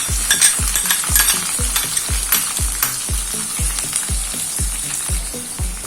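Chopped onions sizzling in hot oil in a kadai, with spatula clicks and scrapes during the first few seconds as they are stirred. A steady low thump about twice a second runs underneath.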